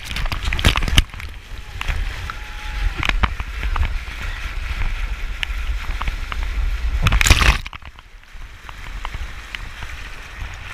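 Breaking surf rushing and splashing around a bodyboard as it rides whitewater, heard close from a board-mounted action camera at water level, over a steady low rumble. About seven seconds in a loud surge of spray hits, then the rush drops to a quieter wash.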